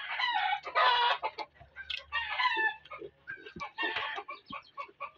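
Chickens clucking, with several loud calls, the strongest in the first second and a half.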